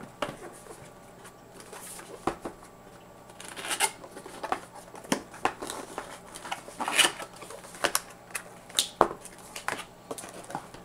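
Cardboard packaging being handled and opened: boxes sliding, flaps and an inner cardboard tray scraping and rubbing, with scattered light taps as the boxes are set down and turned on a table.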